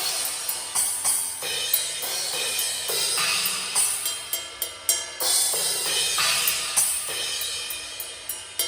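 Acoustic drum kit struck during a sound check: Zildjian cymbals crash and ring in a continuous wash over repeated drum hits, several strikes a second.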